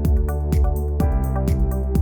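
Electronic music with a steady kick drum about twice a second, hi-hats between the beats and a held bass line.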